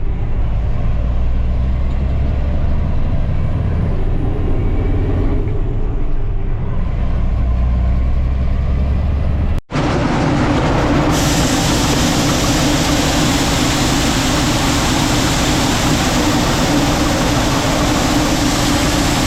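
Harvest machinery running: a steady low engine rumble, then, after an abrupt cut about ten seconds in, a louder steady rushing noise over a constant hum.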